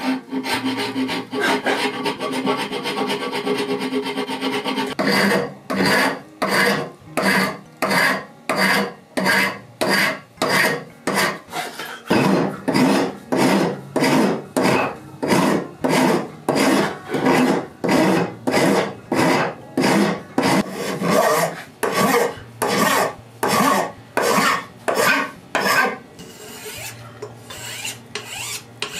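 Flat hand file rasping across a small metal piece clamped in a vise: quick, close-packed strokes for the first few seconds, then steady even strokes about two a second, growing softer near the end.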